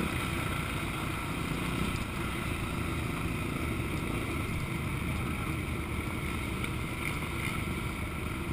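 Motocross bike engine running steadily at low speed, heard from a helmet-mounted camera, with some wind on the microphone.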